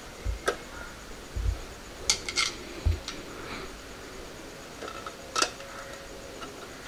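Scattered light clicks and taps of a motorcycle tail light lens being handled and pressed onto its housing: one about half a second in, a quick cluster around two seconds, another near five and a half seconds. A few dull low bumps come in between.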